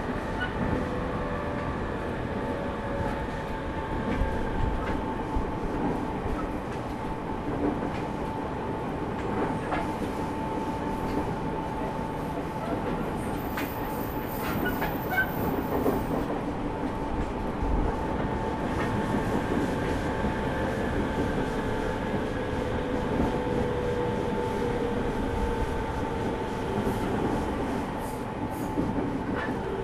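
JR East 209 series (500 subseries) electric train running, heard from on board with the air conditioning on: a steady rumble under a motor whine that slides in pitch, plus scattered clicks of the wheels over rail joints, densest around the middle.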